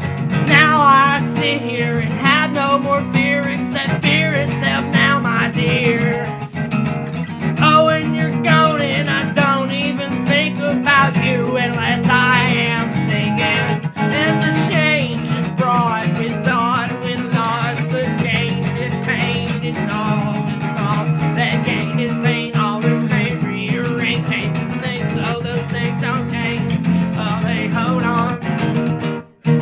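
Music: acoustic guitar accompaniment under a wavering lead melody, with a brief break just before the end.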